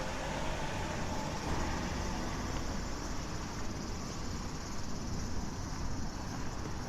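Steady outdoor street ambience: a continuous low rumble under an even hiss, with no distinct events standing out.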